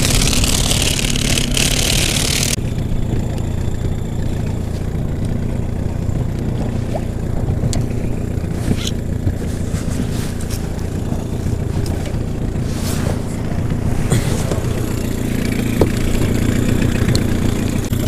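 Small boat outboard motor running steadily at low speed, a constant low hum. A rush of hiss over it in the first couple of seconds cuts off suddenly.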